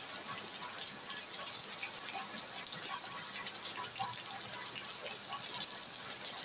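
Steady rain falling: an even hiss with many separate drops ticking.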